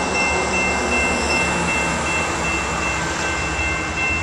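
Diesel locomotive approaching a grade crossing, its engine giving a steady low rumble.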